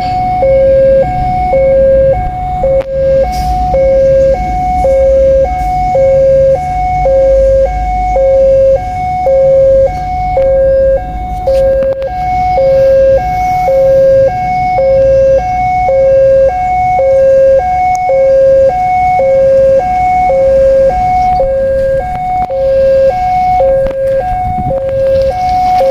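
Railway level-crossing warning alarm sounding its repeating two-tone electronic signal, a lower and a higher tone alternating about once a second, the warning that a train is approaching or passing. A low rumble runs underneath.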